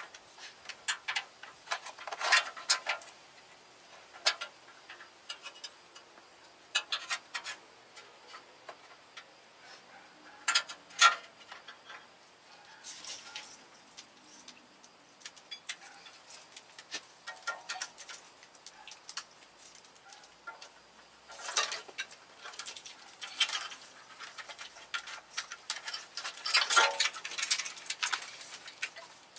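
Irregular light clicks, ticks and short rustles of cables and a wiring harness being handled and routed through a scooter frame. The loudest bursts come about two seconds in, about eleven seconds in, and in a longer rustle near the end.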